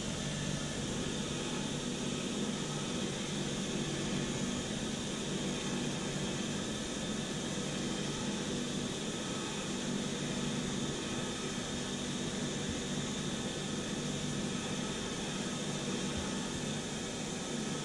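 Bench buffer motor running with a soft wire brush wheel, a steady hum with a hiss, as a Mugen heptagon wheel nut is held against the spinning brush to polish it.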